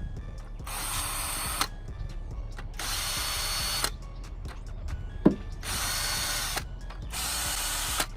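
Electric drill driving a 10 mm socket on LS engine bolts in four short runs of about a second each, straining to turn them. A single sharp click a little past five seconds in.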